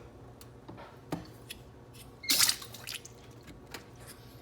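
Handling noises from a portable dishwasher's plastic unicoupler as it is being attached: a few sharp clicks and, a little past halfway, one short wet squish.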